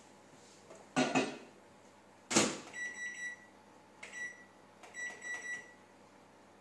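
Built-in microwave oven: a knock, then the door shutting with a sharp bang about two seconds in, followed by about five short electronic beeps as the keypad is pressed to set the cooking time and power.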